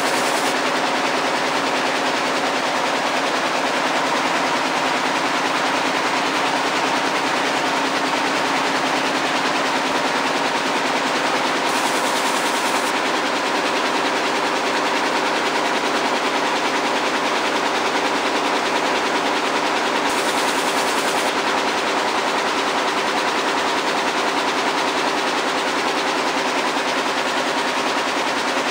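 Air-jet looms running steadily while weaving denim: a loud, even mechanical clatter that does not let up.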